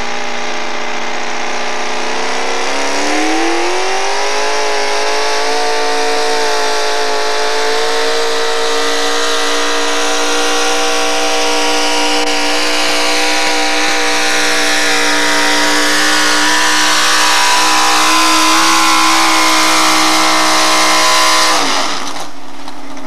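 Modified four-wheel-drive pulling truck's engine revving up as it launches with the weight sled, then held at high revs through a long, steady pull. The revs drop away near the end as the run finishes.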